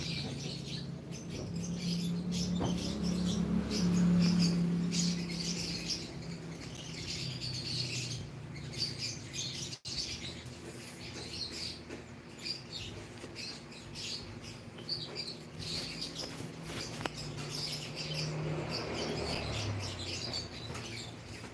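Birds chirping over and over in the background, with a low steady hum that swells for a few seconds near the start and again later on.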